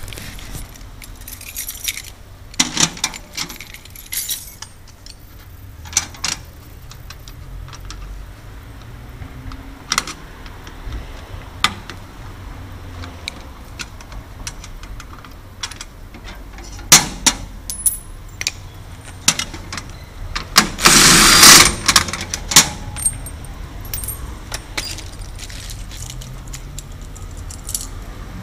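Hand tools clicking, tapping and scraping on a steel mailbox door and its cam lock as the old lock is worked loose and removed. Scattered sharp metal clicks, with a louder scraping rattle about a second and a half long roughly two-thirds of the way through.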